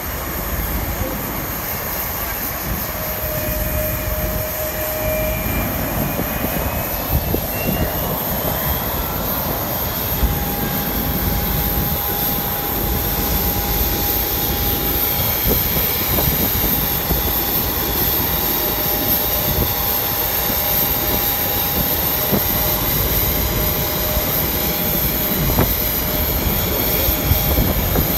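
Steady jet aircraft engine noise with a constant high whine, slowly getting a little louder; a steady mid-pitched hum joins about ten seconds in.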